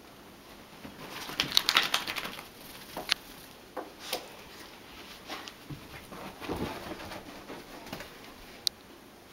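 A wet beagle rubbing and scrambling in blankets on a couch: fabric rustling and scratching, loudest in a burst about a second in, then scattered clicks and soft thumps as it gets down and moves about.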